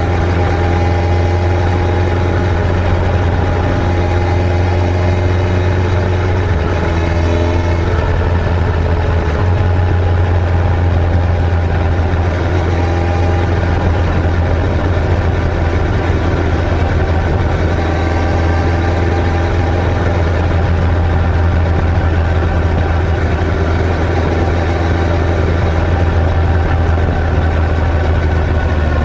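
Suzuki Hayabusa GSX-1300R's inline-four engine running at a steady cruising pace, with wind rushing past. The pitch holds nearly level, drifting only slightly, with no hard revving.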